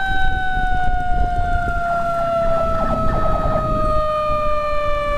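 Emergency siren holding one steady tone that slowly falls in pitch, over a low rumble of the moving motorcycle.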